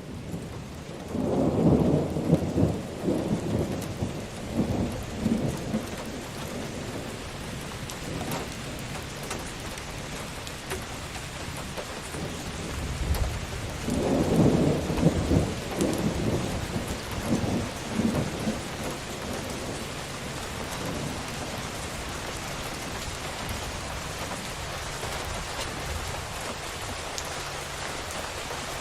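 Steady rain falling on a roof, with two rolls of thunder: one rumbling for several seconds starting about a second in, another about halfway through.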